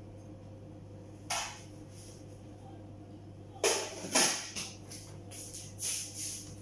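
Kitchenware clatter as food is dished from a lidded cooking pot into a bowl: a knock about a second in, two louder clanks near the middle, then a few lighter clinks, over a steady low hum.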